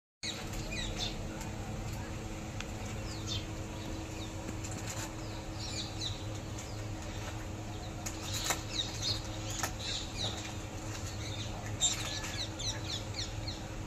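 A plastic food packet crinkling and rustling in short crackles as a gray langur pulls at it, loudest in the second half. Small birds chirp again and again in the background.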